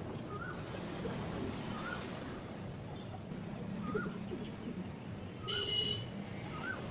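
Puppy whimpering: short rising-and-falling whines every second or two over steady street traffic noise. A brief horn-like toot sounds about five and a half seconds in.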